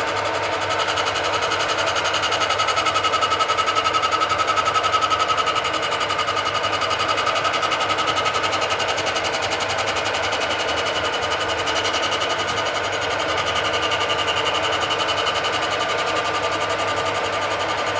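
Old electric toolpost grinder on a lathe running steadily, its grinding stone working along a turning steel shaft under the lathe's automatic feed: a steady motor whine over a low hum.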